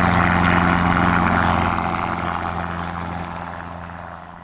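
Robinson R22 helicopter's main rotor and engine during a climb-out departure, a steady low drone with a wide rush on top. It fades away steadily from about a second and a half in as the helicopter flies off.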